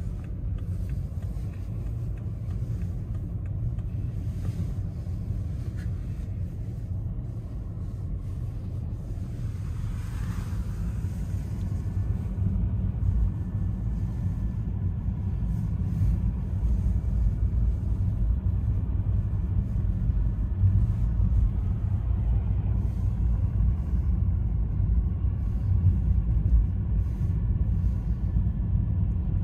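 Low, steady road and engine rumble heard from inside a car's cabin while driving, gradually getting louder.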